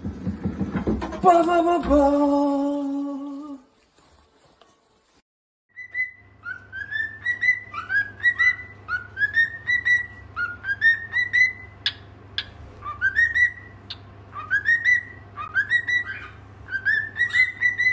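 A cockatiel whistling: a quick series of short rising whistles, one or two a second, over a low steady hum. It opens with a loud held pitched tone that stops about three and a half seconds in, followed by a short silence.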